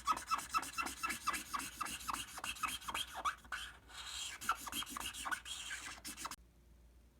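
Quick, rhythmic rasping strokes on wood, about five a second, that stop abruptly a little after six seconds.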